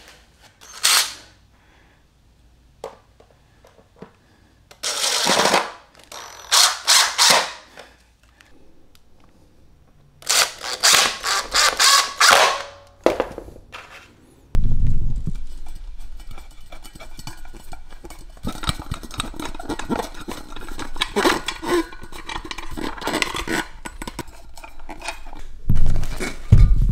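Flat-pack table assembly: several bursts of packaging and parts being handled, then a long run of rapid clicking and clattering over a low hum.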